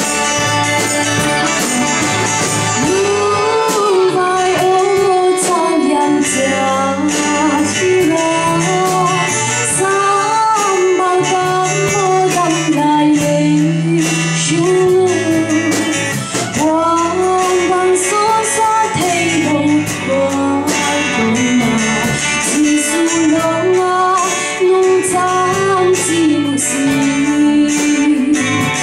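A woman singing a song into a microphone over a live band with drum kit, her voice coming in about three seconds in.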